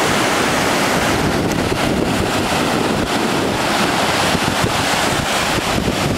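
Ocean surf breaking and washing up a sandy beach in a steady rush, with wind buffeting the microphone as a low rumble.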